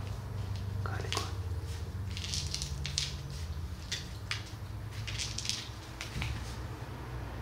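A cat's paws and claws scrabbling and tapping irregularly on a laminate floor, with the rustle of her cloth recovery suit, as she moves about after a spay.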